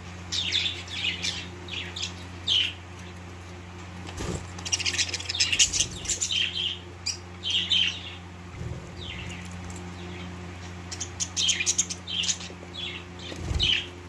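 Budgerigars chirping in quick runs of short chirps, busiest in the middle and near the end, over a steady low hum.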